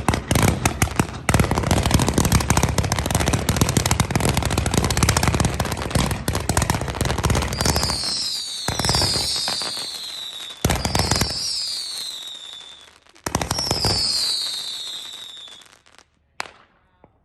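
Fireworks finale: a dense barrage of rapid bangs and crackling for about eight seconds, then a few single loud booms, each trailed by falling whistles, fading out near the end.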